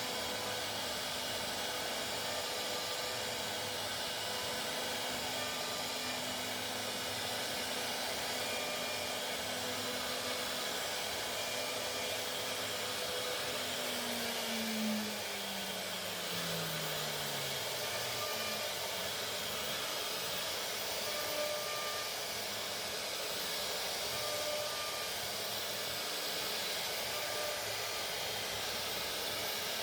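CNC router running with a steady rushing noise. Around the middle a faint steady tone slides down in pitch over a few seconds, as the spindle changes speed.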